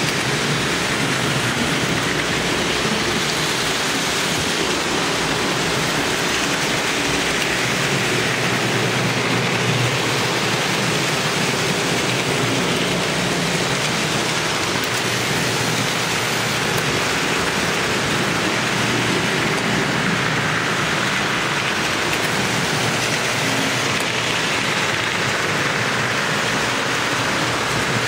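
Lionel model trains running on their three-rail track: a steady, even rumble of wheels and motors with no break.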